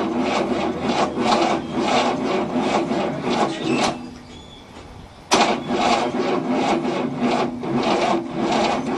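1967 Cadillac's 429 V8 turning over slowly on its starter, a rhythmic rasping churn at about two to three strokes a second. It stops for about a second and a half midway, then cranks again. It is not cranking fast enough to start, on a weak, jumpered battery.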